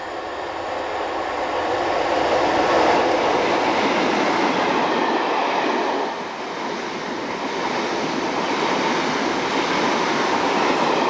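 Class 47 diesel-electric locomotive passing at speed with a train of coaches: the noise builds as it approaches, is loudest about three seconds in as the locomotive goes by, then the wheels and coaches rumble past, dipping briefly about six seconds in.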